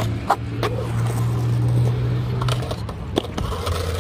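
Skateboard wheels rolling over concrete as a steady low rumble, with several sharp clacks of the board and wheels hitting the concrete and metal coping.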